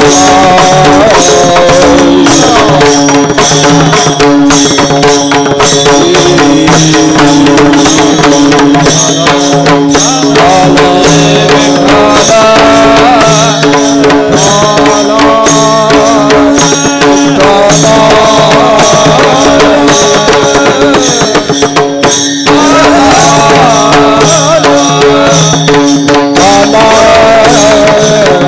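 Loud devotional kirtan music: a steady drone under a wavering melody, driven by a continuous rhythm of hand drums and small cymbals, with a brief drop in loudness about two-thirds of the way through.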